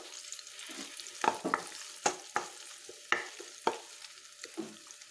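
Sliced Nendran banana sizzling in coconut oil in a frying pan, with a wooden spatula scraping and knocking against the pan about seven times at irregular intervals as it stirs.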